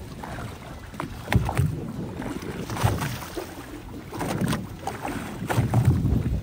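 Wind and water noise on board a small fishing boat at sea, with irregular low thumps and short knocks, the strongest about a second and a half in, around three seconds and near the end.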